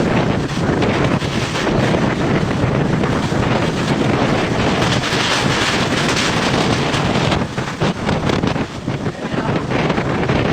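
Strong typhoon wind buffeting the microphone in gusts, a loud rushing noise that eases somewhat about three quarters of the way through.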